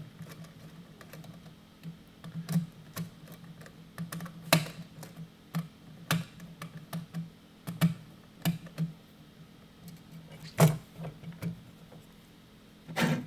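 Irregular small clicks and taps of a screwdriver working the screw terminals of a pump controller's terminal block while a wire jumper is removed, with a few louder knocks in between.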